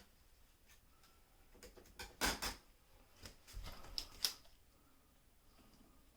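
Handling noises from work on light-switch wiring: a cluster of sharp clicks and taps about two seconds in, then a few more about a second later.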